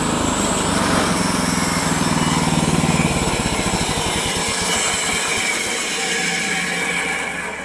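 Woodland Mills HM-126 portable bandsaw mill's gasoline engine running under a cut, its tone growing rougher partway through, then dying away just before the end as the engine is cut.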